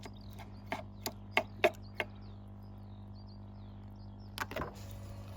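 Squid being cleaned on a cutting board: a quick run of about five sharp knocks, then one more near the end, over a steady low hum and faint high chirps.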